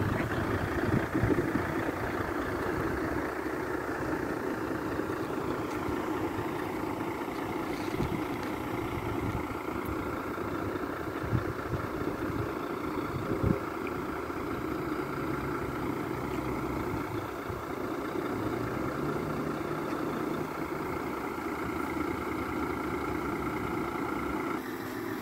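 Diesel engine of a skip-loader truck running steadily at idle, with a thin steady whine above it and a few sharp knocks about 8, 11 and 13 seconds in.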